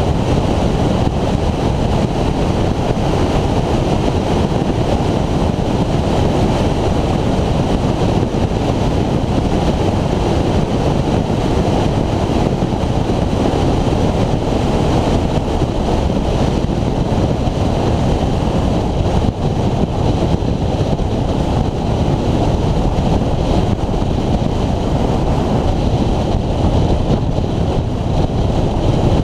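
Steady wind rush on the microphone of a Honda VFR800X motorcycle cruising at road speed, with the bike's V4 engine and tyre noise blended in beneath it.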